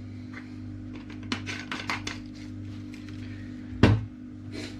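Kitchen items being handled and set down: a run of light clicks and knocks, then one sharp, loud clunk about four seconds in and a lighter knock just after. A steady low hum runs underneath.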